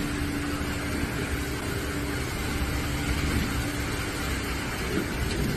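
Storm wind and heavy driving rain, with the wind buffeting the microphone in a dense low rumble. A faint steady hum runs under it for most of the time.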